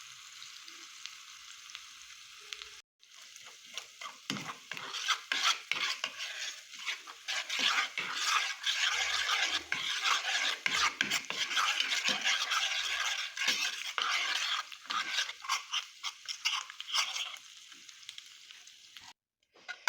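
A spoon stirring and scraping a honey-and-olive-oil mixture in a small frying pan over the heat, with a sizzle underneath. Soft at first, then from about four seconds in a quick run of spoon clicks and scrapes over a louder sizzle, easing off near the end.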